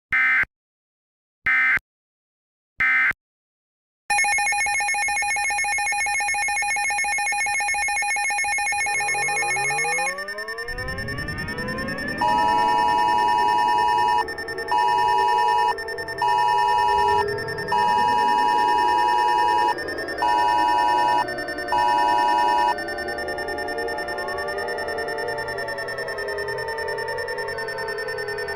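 Three short EAS end-of-message data bursts in the first three seconds, then an electronic drone of several tones held together. About ten seconds in it breaks into sliding, wavering tones, with a loud ringing beep switching on and off about six times until a little after twenty seconds.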